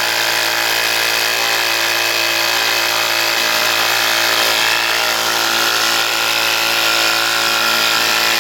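Small portable electric tire pump running steadily with an unchanging motor hum. The tire is not gaining pressure, and the leak is suspected at the pump's own hose end.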